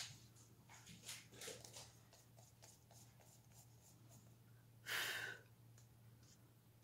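Faint scratchy rubbing of a sponge applicator tool being stroked over a plastic stencil on paper, applying PanPastel: a few soft strokes in the first two seconds, then one louder short rasp about five seconds in.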